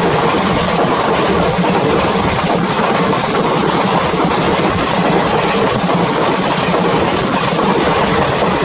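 Express train coaches rushing past close alongside on the adjacent track: a loud, steady rumble and rattle of wheels on rails.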